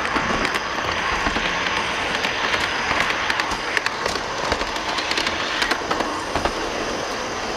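Train rolling along, its wheels clicking and clanking irregularly over rail joints above a steady running noise.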